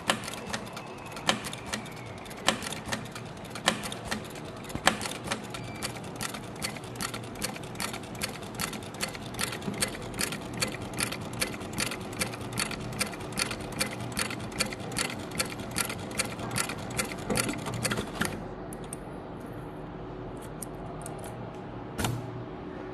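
Industrial heavy-duty sewing machine stitching: a few slow, separate strokes, then a steady run of about three stitch knocks a second. It stops about eighteen seconds in, and one more knock comes near the end.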